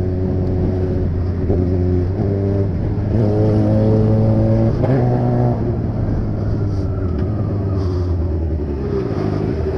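Motorcycle engine running under the rider while riding, its pitch rising as it accelerates and stepping or dropping with gear changes and throttle, over a steady rush of wind noise.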